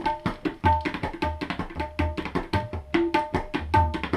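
Tabla played in a fast, steady rhythm. Ringing pitched strokes on the small right-hand drum sound over deep low strokes on the left-hand bass drum.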